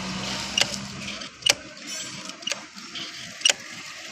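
Metal hand tools clicking and knocking against metal parts in sharp, separate clicks about once a second. A low steady hum fades out after about a second.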